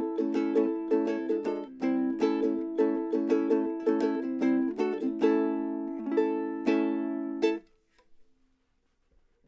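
Antar koa pineapple soprano ukulele strung in low G, playing a run of plucked chords. It ends on a held chord that is damped suddenly about seven and a half seconds in.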